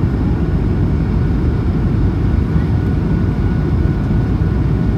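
Steady low roar of an airliner's jet engines and rushing air, heard inside the cabin in flight, with a faint steady whine above it.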